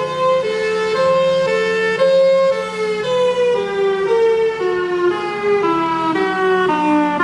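Instrumental music: a melody of held, smoothly joined notes changing about twice a second over a steady low drone, the line stepping downward in pitch through the second half.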